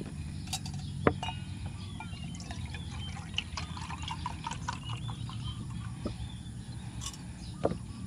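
Milk glugging and splashing as it is poured from a carton into a stainless steel mug, with sharp knocks of the carton and cup, the loudest about a second in and another near the end. A steady low hum runs underneath.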